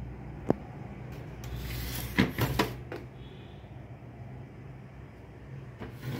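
Kenwood mini hi-fi unit being turned around and shifted by hand on a tiled floor: a sharp click about half a second in, then scraping with a couple of knocks, and more knocks near the end.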